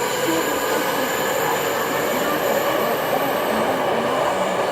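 Busan Metro Line 3 subway train (trainset 4) running through a curve as it leaves the station, its wheels squealing in thin, steady high tones over the running rumble. The highest squeal fades out near the end.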